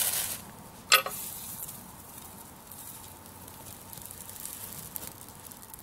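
A fire steel scraped twice with its striker, about a second apart, showering sparks onto dry ornamental-grass seed heads. The tinder catches at once and burns with a steady hiss.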